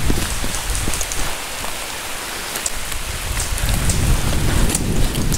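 Rain falling steadily, with scattered sharp ticks of drops close to the microphone. A low rumble builds about two-thirds of the way through.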